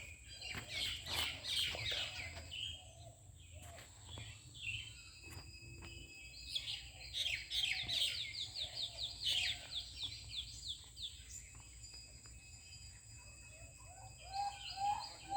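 Several birds chirping and calling together. In the middle comes a fast run of short repeated falling chirps, and near the end a lower call repeats several times.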